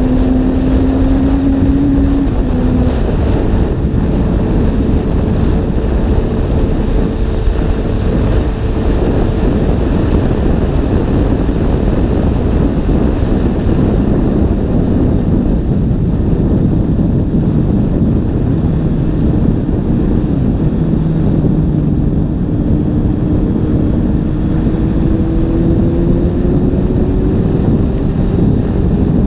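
Suzuki GSX-S750 inline-four with an IXRACE aftermarket exhaust, running on the road under heavy wind noise on the microphone. The engine note drops about two and a half seconds in, then climbs slowly through the second half as the bike gathers speed.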